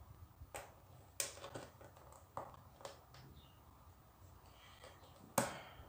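Small plastic LEGO pieces clicking and tapping as they are handled and pressed onto a baseplate: a handful of separate sharp clicks, the loudest near the end.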